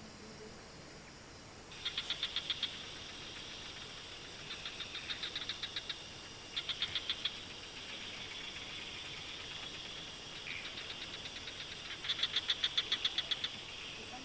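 Outdoor animal chorus: repeated trains of rapid high-pitched pulses, about nine a second, each lasting about a second, over a steady high hum, typical of calling frogs or insects. The loudest trains come near the end.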